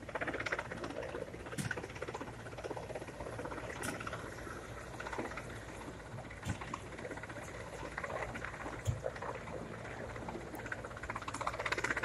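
Distant helicopter hovering with a slung load, its rotor making a rapid, even chopping sound, with a few sharp clicks along the way.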